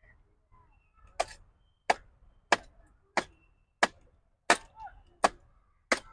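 A machete chopping at the branches of a thorny tree, starting about a second in: eight sharp strikes, evenly spaced about two-thirds of a second apart.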